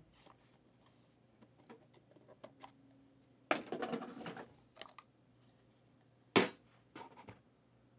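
Hands opening a cardboard trading-card box: scattered light clicks, a short rustling scrape of cardboard about three and a half seconds in, and one sharp tap a little after six seconds.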